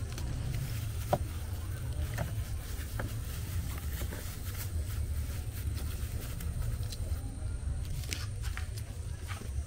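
Hands working land snails in a plastic bowl of water, pulling the flesh from the shells: scattered small clicks and wet handling noises, the sharpest about a second in, over a steady low rumble.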